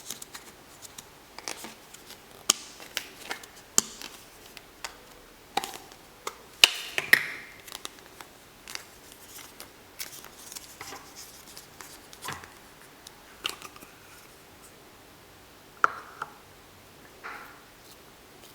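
A mini plastic Play-Doh jar being opened and the dough handled: scattered small plastic clicks, taps and short scrapes, irregular and quiet.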